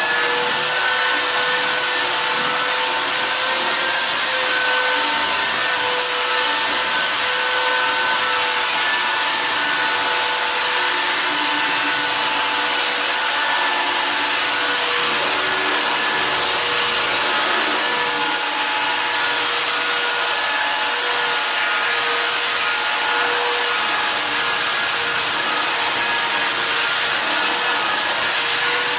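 Handheld electric sander running continuously on wooden floorboards: a steady motor whine over the hiss of abrasive on wood.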